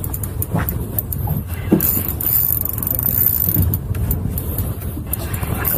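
Steady low rumble of a small boat at sea with wind on the microphone, and a few faint clicks as a spinning reel is cranked against a hooked cobia.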